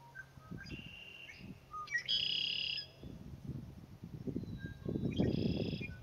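Male red-winged blackbird singing its conk-la-ree song from the cattails. There is a fainter buzzy phrase about a second in, then two full songs about three seconds apart, each a few short notes followed by a loud buzzy trill.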